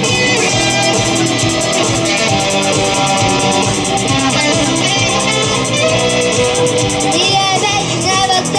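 Instrumental passage of a rock song: guitar playing over a steady drum beat.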